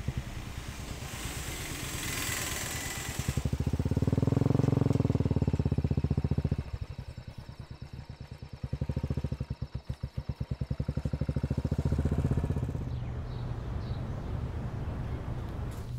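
A motorcycle engine running with a rapid firing beat, loudest a few seconds in, then pulsing up and down as the bike is ridden away. A steady low hum carries on near the end.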